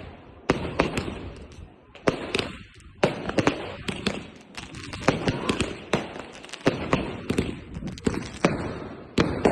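Fireworks going off in quick, irregular succession: a steady barrage of sharp bangs and crackles, several a second at times, each fading out in an echo.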